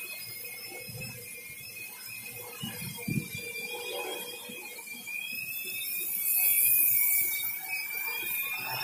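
Electric multirotor drone in flight, its motors and propellers giving a steady high whine that wavers slightly in pitch. A rush of hiss swells about six seconds in.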